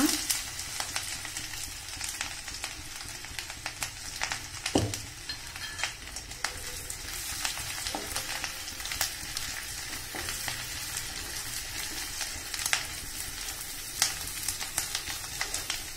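Chopped green chilli, garlic and ginger sizzling in melted butter in a wok: a steady hiss dotted with many small pops, with a spatula stirring through the pan now and then.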